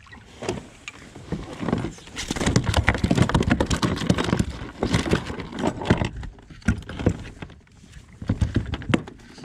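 A just-landed fish flapping and knocking against the kayak's deck, mixed with the rattle of rod and tackle being handled; the knocking comes in a dense run through the middle and again near the end.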